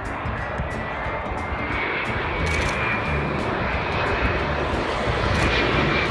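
Boeing 787-9 Dreamliner's Rolls-Royce Trent 1000 turbofans on landing approach: a steady jet rush with a faint high whine, growing slowly louder as the plane comes closer.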